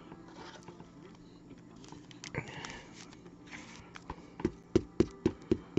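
Quiet handling noise with a brief rustle about two and a half seconds in, then a quick run of light taps, about three or four a second, near the end as trading cards and their holders are handled on a table.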